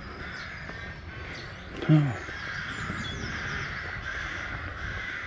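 Crows cawing in the background, with faint chirps of smaller birds. About two seconds in comes a single short, low sound falling in pitch, like a brief voice.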